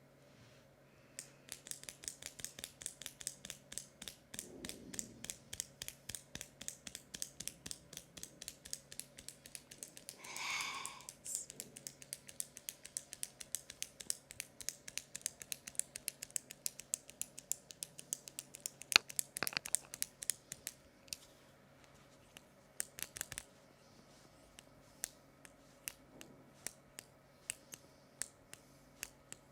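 Rapid, sharp clicking, about four to five clicks a second, used as an ASMR trigger. After about twenty seconds it thins out to scattered single clicks.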